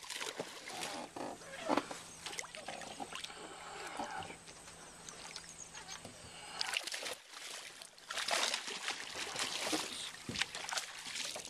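A hooked bass splashing and thrashing at the water's surface beside a boat, with water sloshing in irregular bursts that are heaviest about eight seconds in.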